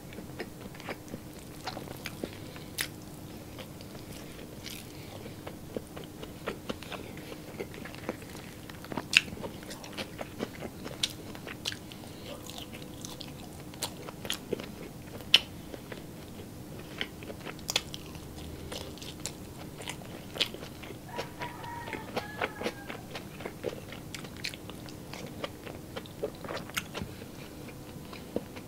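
A person chewing a mouthful of salted egg close to the microphone: soft wet mouth clicks and smacks at irregular intervals, over a faint steady hum.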